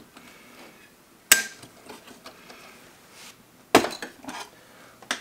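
Small metal tabs on a car cassette player's sheet-metal plate being spread open: two sharp metallic clicks, about a second in and near four seconds, the first with a brief ring, among faint handling sounds.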